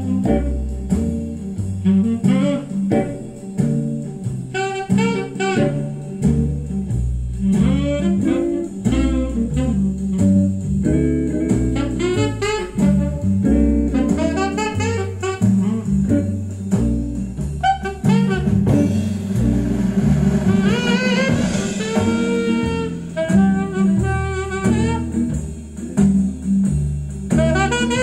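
Small-group jazz played from a vinyl record through horn loudspeakers and heard in the room: saxophone and guitar over a walking bass line and drums.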